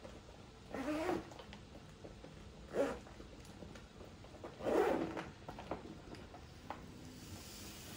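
The zipper on a Harol Fast-Har ventilation helmet's neck collar being pulled closed in three short pulls, with a few small ticks between them.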